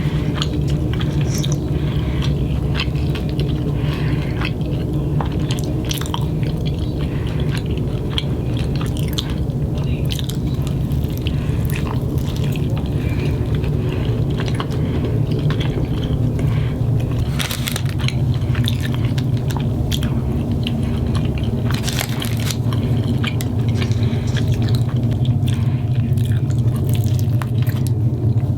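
Close-miked chewing and biting of a California burrito, with wet mouth clicks and small crunches from the fries, over a steady low hum.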